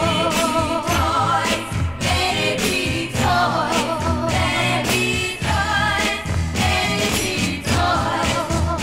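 1960s girl-group pop record playing: female voices singing with vibrato over a steady beat of drums and bass.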